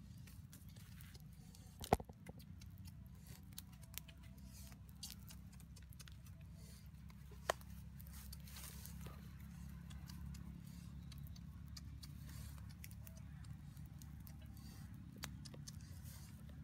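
Small fire of dry twigs and grass burning, with scattered crackles and pops over a steady low rumble; the sharpest pop comes about two seconds in and another about seven seconds later.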